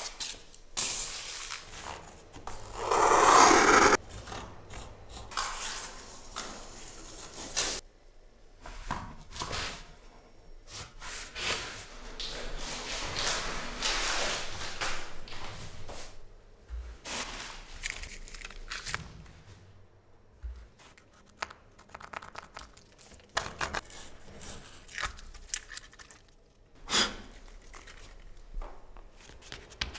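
Self-adhesive vinyl floor planks being handled and laid: backing paper torn, peeled and crumpled, with irregular scraping, rustling and short knocks of planks set down and pressed into place. The loudest stretch, about a second and a half long, comes about three seconds in.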